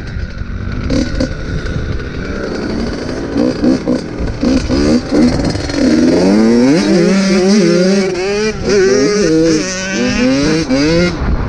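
Dirt bike engine running under way, its pitch repeatedly climbing and dropping back as the throttle is worked and the gears change, over low wind rumble on the microphone.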